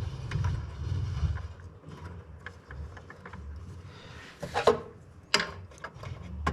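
Scattered small clicks and rattles of wires and connectors being handled and worked into place in an electrical panel, with two louder sharp knocks about four and a half and five and a half seconds in, over a low steady hum.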